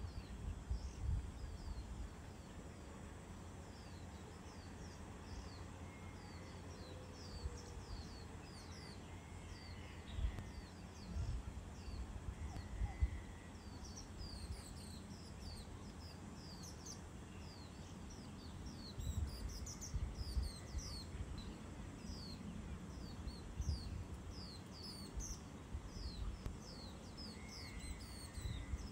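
Small birds chirping constantly in quick, short, high notes, with gusts of wind rumbling on the microphone now and then.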